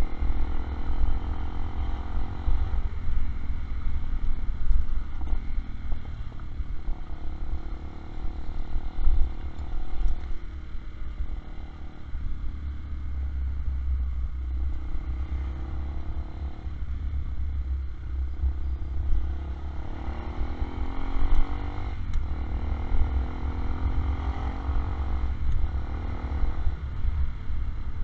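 Zanella ZR 150 motorcycle's single-cylinder engine running on the move, revving up several times as it pulls away and shifts through the gears, then easing off, over a steady low rumble.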